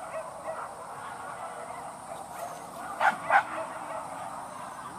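A hunting dog barks twice in quick succession about three seconds in, over a faint steady background.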